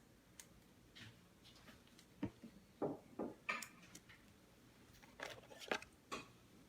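Trading card being slid into a plastic penny sleeve and rigid toploader: a string of soft plastic clicks, taps and rustles, with pauses between them.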